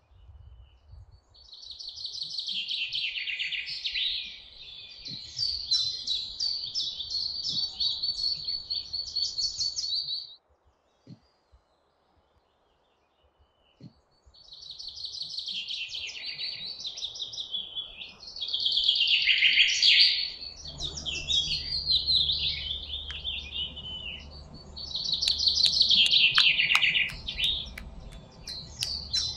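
Dense, high bird-like chirping in long stretches that switch on and off abruptly, with a silent gap of about four seconds midway. A low hum runs under the second stretch, and a run of quick clicks comes in near the end.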